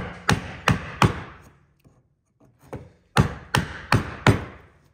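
A mortise chisel being struck to chop a mortise into timber by hand: two runs of four sharp blows, about three a second, with a pause of about two seconds between them.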